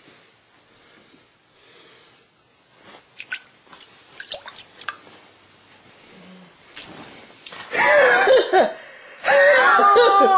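Slow, faint breathing of a sleeping woman, then a few sharp clicks and rustles. About eight seconds in, a woman's loud wailing cry starts, breaking off once and then starting again.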